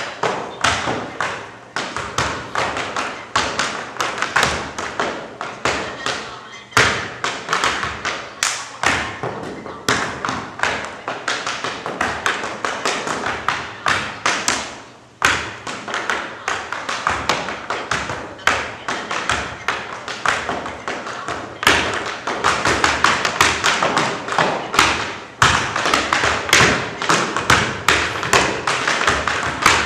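Tap shoes striking a stage floor in fast, continuous rhythmic runs, with a few short breaks and the taps growing denser and louder from about two-thirds of the way through.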